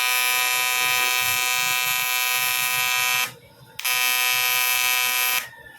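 TIG welding arc buzzing with a steady high tone while welding a repair on a CT100 engine block. The arc stops for about half a second a little past three seconds in, strikes again, and cuts off near the end.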